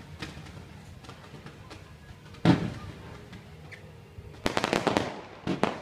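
Fireworks going off, with faint crackling throughout. A single loud bang comes about halfway through, then a rapid rattle of sharp cracks near the end.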